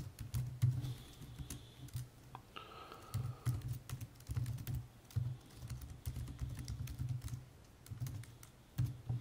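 Typing on a computer keyboard: irregular keystroke clicks in quick runs, with short pauses between them.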